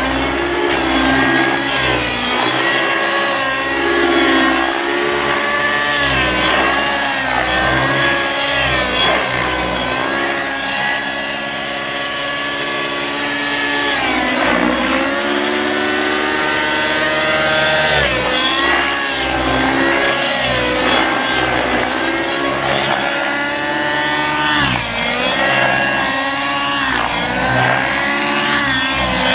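Aeolus 50 nitro RC helicopter in aerobatic flight: the high whine of its glow engine and rotor note rises and falls continually with throttle and blade pitch, dipping sharply about halfway through and again later before climbing back.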